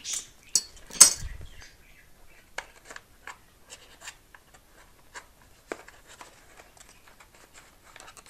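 Small clicks, taps and scratches of fingers and a thin metal tool pushing servo wires down into a servo bay in a carbon-fibre wing. The loudest is a sharp click about a second in; after that come scattered faint ticks and scrapes.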